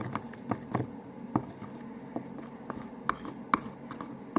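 Irregular small clicks and scrapes of a toothpaste-and-shampoo slime mixture being stirred and handled in a small container.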